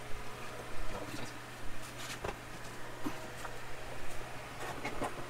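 Hard plastic bumper cover and trim being handled and pressed into place on a car's front end: scattered clicks and knocks at irregular intervals, over a steady low hum.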